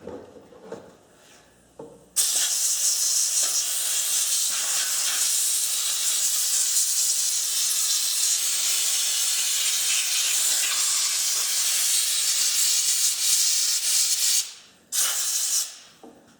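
Compressed-air blow gun hissing as it blows sawdust and grime off a chainsaw: one long blast of about twelve seconds starting about two seconds in, then a short second blast near the end.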